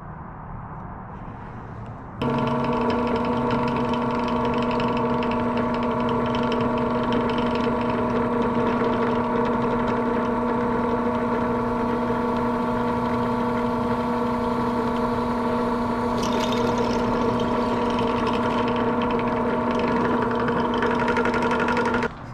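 Benchtop drill press running steadily, a small bit drilling a pilot hole through the main-spar attachment bracket. The motor switches in abruptly about two seconds in and stops just before the end, with a higher hiss joining about two-thirds of the way through.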